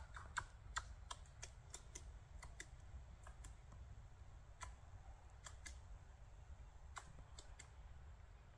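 Near quiet, with faint, irregular sharp clicks and ticks, bunched together in the first two seconds and sparser after.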